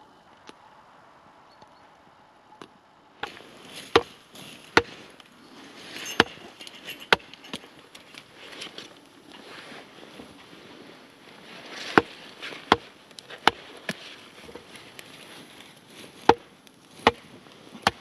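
Sharp chopping strikes, some single and some in quick pairs less than a second apart, with pauses between them. The first few seconds before the strikes begin are quiet.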